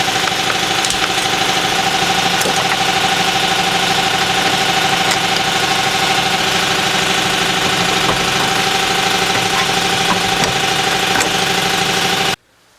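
Angle grinder running steadily with a high whine and a hiss, cutting through a steel door hinge pin; it stops abruptly near the end.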